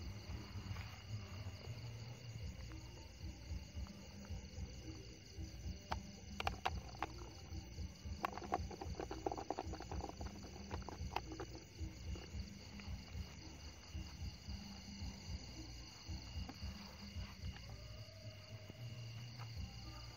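Night insect chorus: crickets trilling steadily at several high pitches, over low rumbling handling noise. A run of sharp crackles and rustles comes in the middle.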